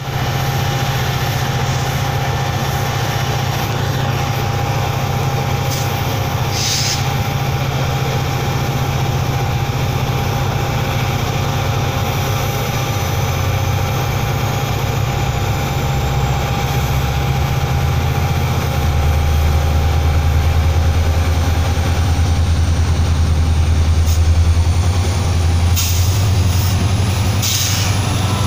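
Heavy SNTF diesel locomotives working as a freight train pulls out: a deep, steady engine hum that drops in pitch about halfway and then grows louder as an orange 060DP locomotive draws close. A thin high whine rises slowly through the second half, and a few sharp knocks come near the end.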